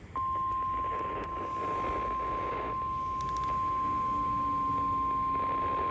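Weather-radio warning alarm tone: one steady, loud single tone near 1,050 Hz that switches on abruptly just after the start and holds. It is the alert signal that a warning message is about to follow. A hiss of background noise runs underneath.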